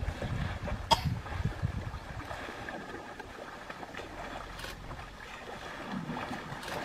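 Water splashing and sloshing as a baby elephant rolls and thrashes in a shallow muddy river, with wind rumbling on the microphone and a few sharp splashes, the clearest about a second in.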